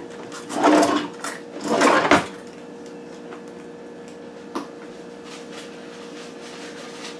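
Two loud scrapes about a second apart, like a wooden chair dragged on a tile floor, then a single light click, over a faint steady hum.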